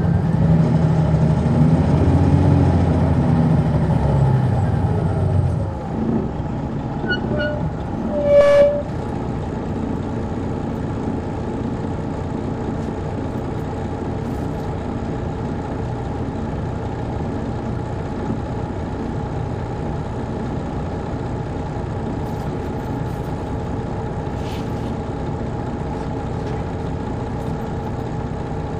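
Detroit Diesel Series 60 diesel engine of an MCI D4000 coach heard from the rear of the cabin: a heavy low drone with rising and falling pitch that cuts off abruptly after about five seconds, a brief sharp tone about eight seconds in, then the engine idling steadily.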